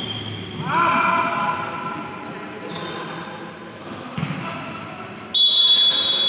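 Futsal ball and players' sneakers on a wooden indoor court: ball thuds and shoe squeaks on the floor, with a long, loud high squeal starting about five seconds in.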